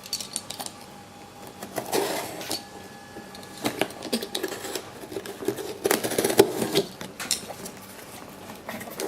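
Shipping carton being opened and its contents handled: irregular rustling, scraping and clicking of cardboard and packing material in several bursts, the busiest about two, four and six seconds in.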